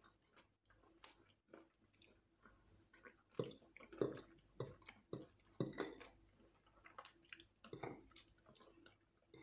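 Close eating sounds of people eating fried chicken and spaghetti: soft chewing and mouth smacks, with a scattering of short clicks that are loudest around the middle.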